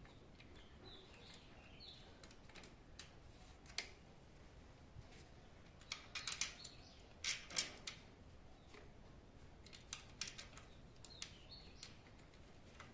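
Scattered small metallic clicks and taps of stem-clamp screws and an Allen key being fitted to a bicycle handlebar stem, with two denser runs of clicking about six and seven and a half seconds in.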